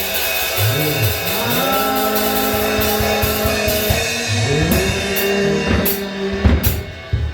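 Band music with a drum kit playing under held notes and sliding bass notes; it thins out near the end, leaving a few drum and cymbal strokes.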